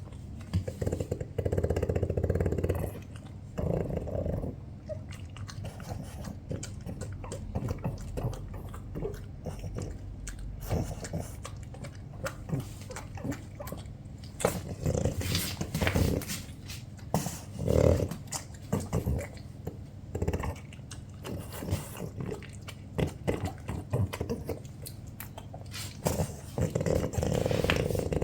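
French bulldogs growling in low bouts as they contest food, strongest at the start and again near the end, with scattered clicks between.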